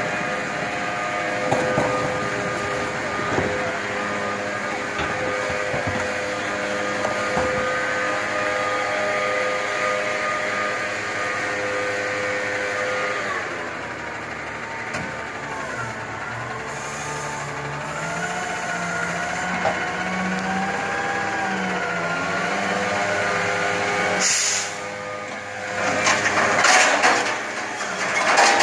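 Heil front-loading garbage truck running with a steady engine note and whine while it is loaded at the curb. About halfway through the note drops, then rises and falls as the truck moves off and lifts its forks, with a short air hiss and louder noisy bursts near the end.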